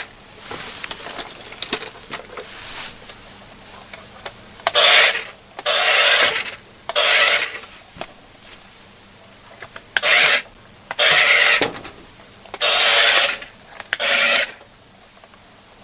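Remote-control transforming robot toy car's small electric motor and plastic gears whirring in short bursts, about seven times, as it is driven from the remote.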